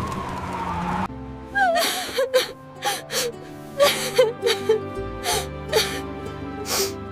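Background music with a voice gasping and whimpering over it in a dozen short, breathy, wavering cries, like someone sobbing. In the first second there is a noisy rush with a rising tone.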